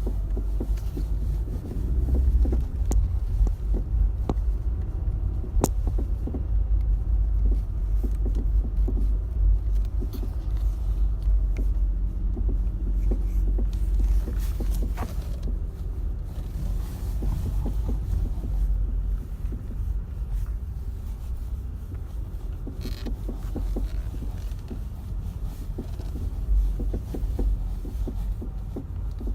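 Low road rumble inside a moving 2016 Skoda Rapid, with repeated short knocks from its factory anti-roll bar end links as the suspension works. The knocking seems to come from the rear, but it is the stabilizer links: it stopped once they were replaced.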